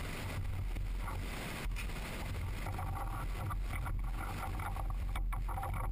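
Light clicks and knocks of metal parts being handled as a tool is set in the tool post of a mini-lathe radial cutter, over a steady low rumble.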